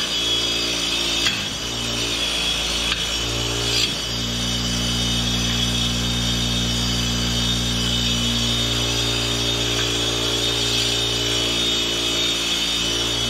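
Bench grinder running steadily with a green silicon-carbide wheel, grinding the carbide tips of 1100-series stump-grinder teeth. The motor hum wavers for a few seconds near the start, then holds even.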